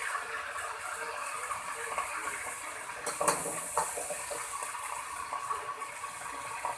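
Minced meat (keema) frying with onions in hot oil, a steady sizzle, with a few short knocks a little after halfway.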